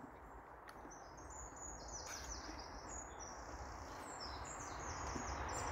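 A songbird singing faintly in two quick runs of high down-slurred notes, over a steady low hum of distant road traffic.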